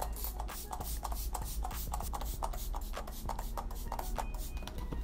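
Makeup setting spray being pumped over the face in a rapid run of short hissing spritzes, about three to four a second.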